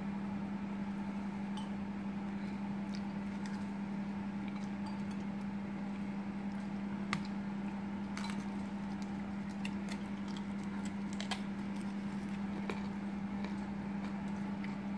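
Kitchen knife cutting through salmon head on a wooden cutting board: scattered light clicks and taps of the blade against the board and bone, over a steady low hum.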